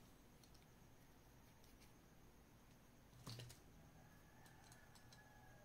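Near silence with faint clicks of small hand tools being handled, and one louder knock about three seconds in.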